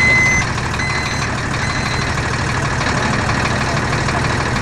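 Jet airliner cabin noise while taxiing: a steady rumble and hiss from the engines. Over it, a high electronic beep repeats about once a second and fades out about halfway through.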